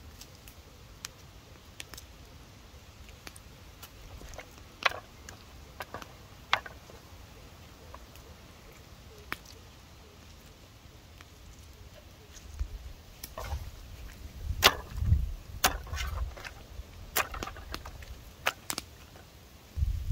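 Gloved hands squeezing lemon over raw meat and handling it on a flat board: scattered light clicks and taps, then in the second half a run of dull thumps and knocks as the meat is moved about.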